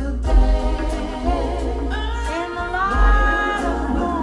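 Recorded music played through a pair of M3 Sapphire floor-standing loudspeakers: a song with deep bass and sung voices, without clear words here, the singing gliding and sustained.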